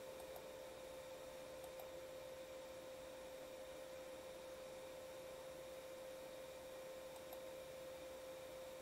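A faint, steady single tone held at one pitch over a low hiss, a sustained note left ringing in the background music.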